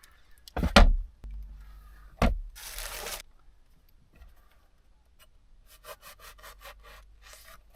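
Serrated bread knife sawing through bread, with a quick run of short back-and-forth strokes near the end. Two sharp thumps come earlier.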